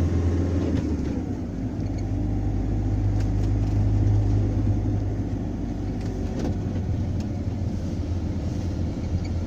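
A van's engine and road noise inside the cab while driving: a steady low drone that shifts about a second in, with a few faint clicks or rattles.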